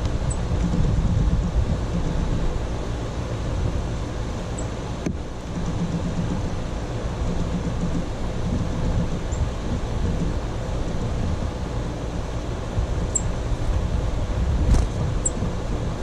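Steady, fluctuating low outdoor rumble, with a few short, faint high chirps from small birds scattered through it.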